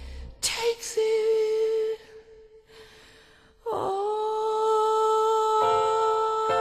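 Slow background music: a long held note that fades out about two seconds in, a short near-quiet gap, then another sustained note that slides down into place and holds steadily.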